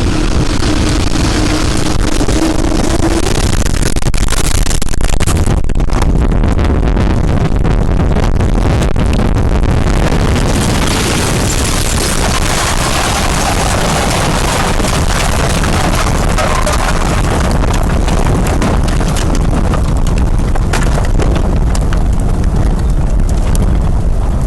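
Loud, steady wind noise of a severe storm, with a steady tone that stops about three seconds in.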